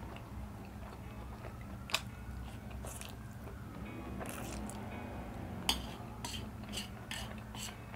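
Close-up eating sounds of spicy instant noodles: noodles slurped in and chewed, with chopsticks clicking sharply against the metal pan a few times, mostly in the second half.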